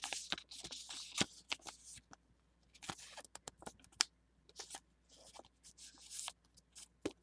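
Pokémon trading cards being handled: short papery slides and light clicks as cards are slid against one another and flicked through in the hand, coming and going irregularly.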